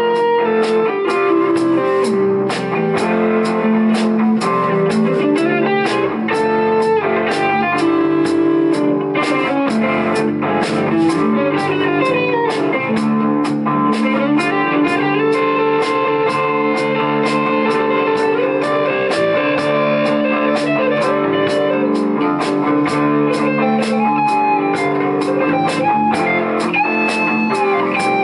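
Live rock band playing an instrumental passage: two electric guitars and an electric bass over a steady drum-kit beat, with a lead guitar holding long notes and bending their pitch.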